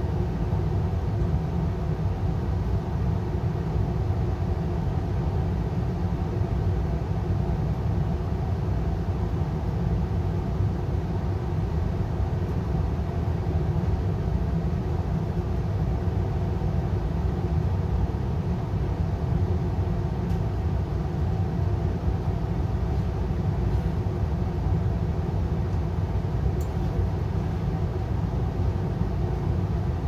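Payne gas furnace running steadily: a low rumble with a few steady hum tones over it.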